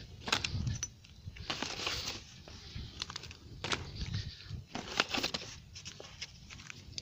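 Bonfire burning, with irregular crackles and sharp pops.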